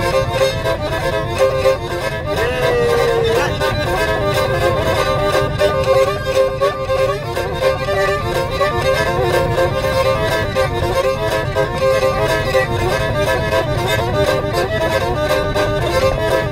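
Kamancheh, a bowed spike fiddle, playing a quick, continuous melody with many note changes and a pitch slide about three seconds in.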